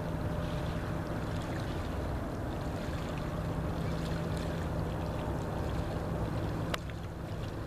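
Steady low engine hum under a noisy rush of wind and water. About seven seconds in there is a sharp click, and the rushing noise eases.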